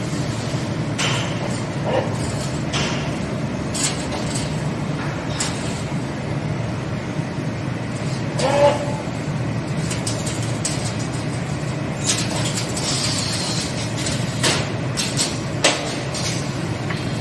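Automatic wire hook forming machine running: a steady low hum broken by sharp clicks and knocks of its air cylinders and forming tooling every second or few.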